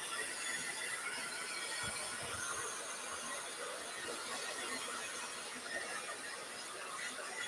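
Handheld hair dryer running steadily over raccoon fur: a rush of air with a faint high whine.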